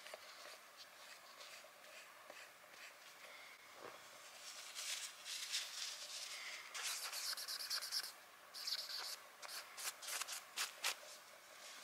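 Toothbrush being cleaned in salt water and the water drained off: soft scrubbing and rubbing strokes, louder from about halfway, ending in a run of short brisk strokes.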